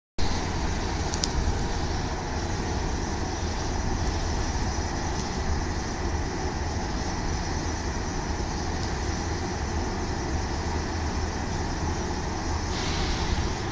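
Steady low rumble and hiss of railway platform ambience, with a Kintetsu local train standing at the platform. A brighter hiss swells near the end.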